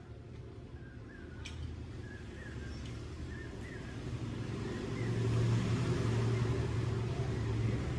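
A motor vehicle's engine running with a low hum, growing louder about five seconds in. A few faint short chirps sound in the first half.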